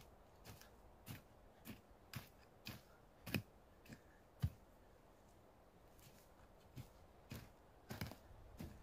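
A short-handled digging tool chopping into root-filled forest soil: dull strikes about every half second, a pause of about two seconds midway, then more strikes. The loudest strike comes about four and a half seconds in.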